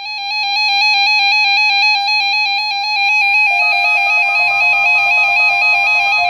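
Electronic warning alarm tone of an emergency alert broadcast test, loud and rapidly warbling between two close pitches. About halfway through it drops a little in pitch and a second, higher tone joins it.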